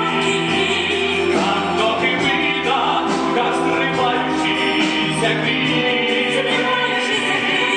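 Stage musical finale: the cast ensemble singing together as a choir over instrumental backing, a full sustained sound heard live in the theatre auditorium.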